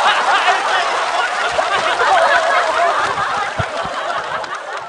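Studio audience laughing at a punchline, many voices together, tapering off a little near the end.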